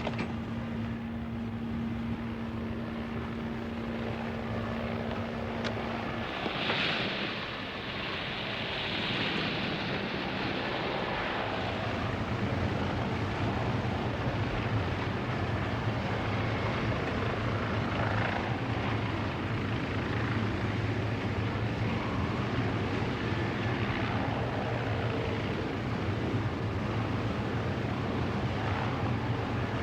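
Steady mechanical engine drone, with a rushing hiss that swells for a few seconds about seven seconds in; from about twelve seconds a steady low drone carries on.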